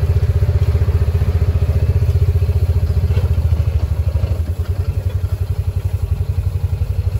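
Engine of a slow-moving ranch vehicle running at low speed, heard from on board: a rapidly pulsing low rumble with a steady hum over it.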